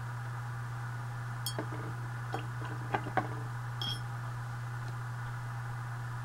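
A few light clicks and taps as a paintbrush and a metal watercolor tin are handled, two of them with a brief high ping, over a steady low electrical hum.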